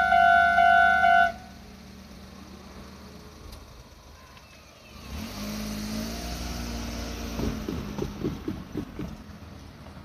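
Japanese electronic level-crossing bell ringing in a steady two-per-second pulse, cutting off suddenly about a second in. From about five seconds in, a vehicle rumbles past with a rising hum and a run of clunks near the end, then fades.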